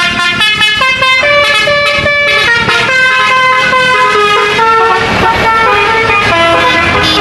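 Bus telolet musical horn playing a tune, a multi-note horn stepping quickly from one loud pitch to the next.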